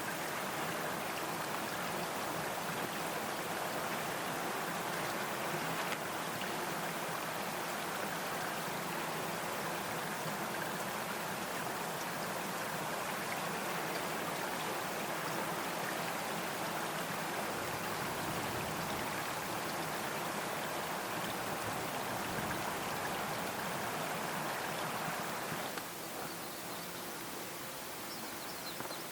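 Stream water running with a steady rushing babble, a little quieter for the last few seconds.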